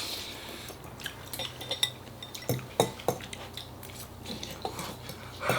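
Eating utensils clinking and scraping against noodle dishes, with scattered light clicks and a few sharper knocks partway through.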